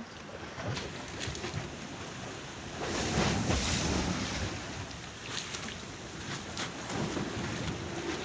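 Rough sea waves slapping and washing against a ferry's hull, with wind buffeting the microphone; a louder surge of water about three seconds in.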